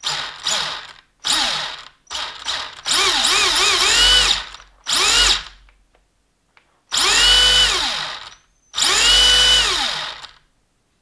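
Electric motor of a Losi Triple XS RC buggy, blipped repeatedly on the throttle in a response test. It makes about seven whining bursts that rise and fall in pitch; the last two are longer, held for over a second each.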